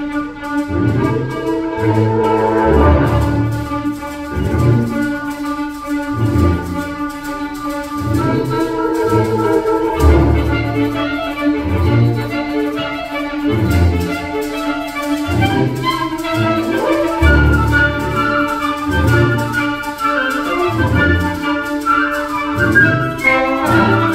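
Concert band of clarinets, flutes and brass playing a piece, with a held middle note under the melody and bass notes sounding in a regular pulse.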